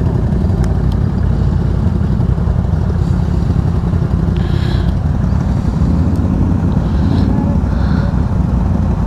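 ATV engine running under way on a trail, a steady low rumble with a few light knocks.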